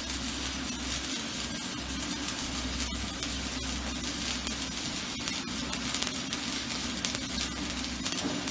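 Shielded metal arc (stick) welding with an E6013 electrode at about 80 to 90 amps: the arc sizzles steadily with frequent sharp crackles and pops, over a steady low hum.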